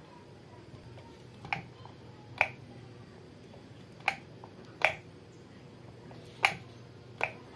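Six clicks of a plastic wall switch on a test switchboard, in three pairs each under a second apart, as the switch is flicked off and on to test a repaired LED bulb.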